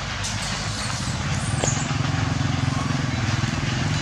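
A motor vehicle engine running with a low, steady hum that is strongest through the middle, over a constant hiss of outdoor background noise.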